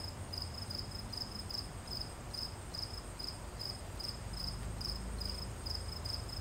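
A cricket chirping steadily, short high chirps repeated about two to three times a second, over a low rumble that grows a little louder about four seconds in.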